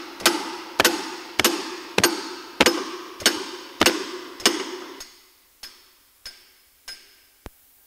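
Hammer blows on a steel seal-driver handle, driving a unitized wheel seal into a truck hub: about eight ringing strikes at a steady pace of under two a second. About five seconds in, the blows turn into four weaker, duller taps, the change in sound as the seal hits home in the hub.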